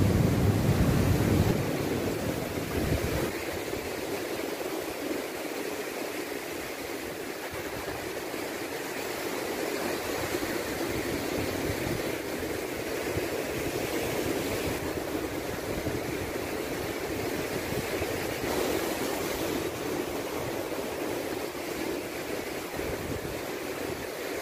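Ocean surf breaking and washing over a rocky shore: a steady rush of waves and foam, with a louder low rumble in the first second and a half.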